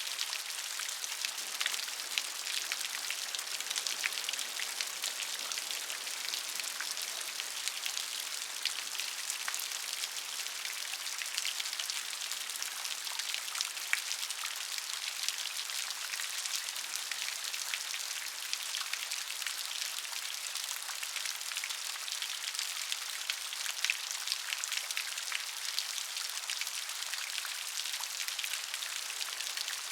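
Steady rain, with a continuous hiss and many fine, distinct drop ticks.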